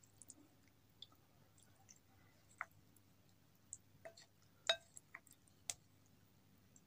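Wooden spoon clicking and clinking against a glass bowl while stirring saucy instant noodles and vegetables: a scattering of faint separate clicks, the loudest about two-thirds of the way through.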